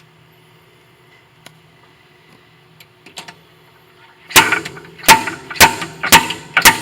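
Slide hammer being slammed back to pull a lathe's gear selector shaft and its pressed-on bearing out of the headstock: a few faint clicks, then, about four seconds in, a run of five sharp metallic strikes about half a second apart, each with a short ring.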